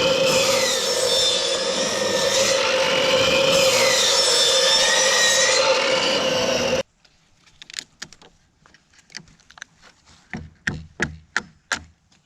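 Power saw cutting into a wet timber beam to half depth for a half-lap joint, its motor pitch dipping and recovering under load; it stops abruptly about seven seconds in. After that comes a series of separate sharp knocks on wood, about eight of them.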